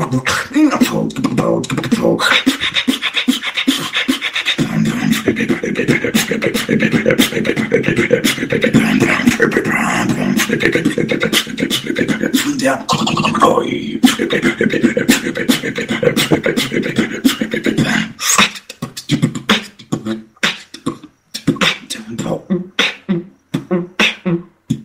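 Vocal beatboxing over TeamSpeak voice chat: a dense run of mouth-made drum sounds with a held tone under them from about two seconds in to about fourteen seconds, then sparser separate hits with short gaps in the last few seconds.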